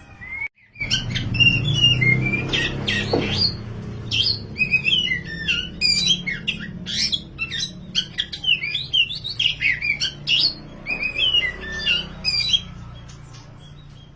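Kacer (oriental magpie-robin) singing a fast, continuous stream of varied whistled and chattering notes that glide up and down. The song starts about a second in and stops shortly before the end, over a low steady hum.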